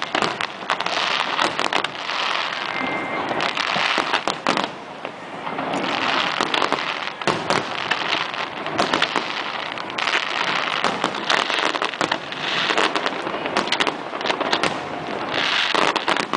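Fireworks going off with dense crackling and many sharp pops over a hissing wash. The sound swells and eases in waves every couple of seconds.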